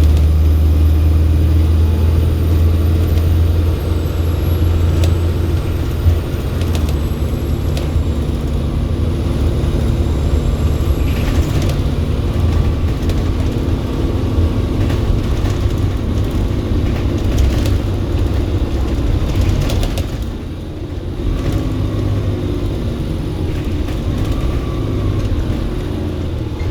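Volvo B7RLE bus's turbocharged six-cylinder diesel engine working hard, with a high turbo whistle that falls in pitch over the first several seconds. The engine eases off about twenty seconds in, then pulls again.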